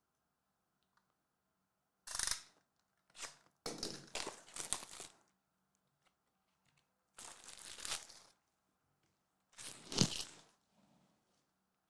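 Plastic shrink wrap being torn and crumpled off a trading-card box, in five short crinkly bursts, the loudest near the end.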